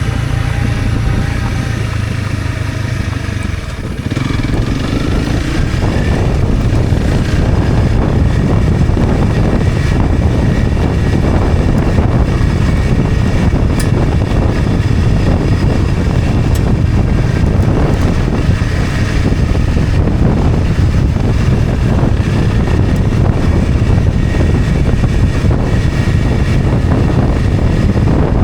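Honda CRF250 Rally's single-cylinder four-stroke engine running as the bike rides downhill on a dirt mountain road. A steady engine note for about the first four seconds gives way to a dense, rough rumble of engine, tyres and wind for the rest.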